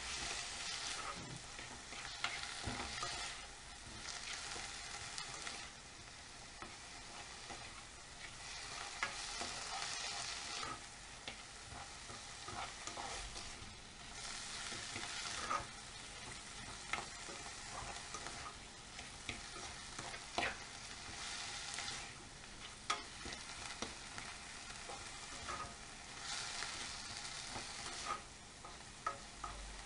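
Sliced mushrooms and onion sizzling as they sauté in a frying pan, stirred with a plastic spoon. The sizzle swells in waves as the food is turned, with scattered clicks of the spoon against the pan.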